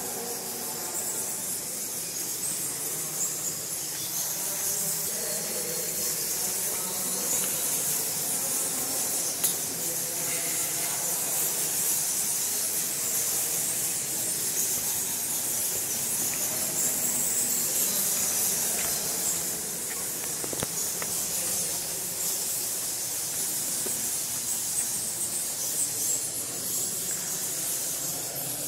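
A steady high-pitched hiss, fairly loud.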